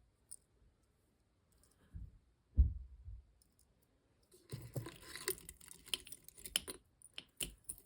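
Small metal jewelry pieces clinking and rattling against each other as they are handled and sorted, in a cluster of quick clicks over the last three seconds, after a dull handling bump about two and a half seconds in.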